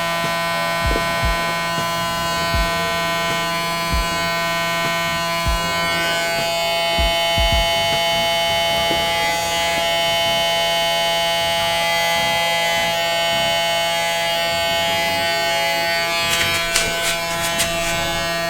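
Small electric motor running steadily with a constant whine, with scattered low knocks from handling.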